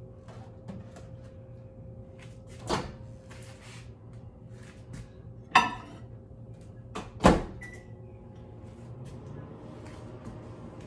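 Kitchen clatter: three sharp knocks, the second and third the loudest, over a steady low hum.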